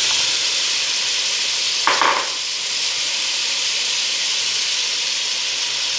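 Pot of meat and vegetables frying in butter and oil with a steady sizzle, as diced carrot and zucchini are tipped in at the start. There is a brief knock or scrape about two seconds in. This is the sauté stage, before any water goes into the stew.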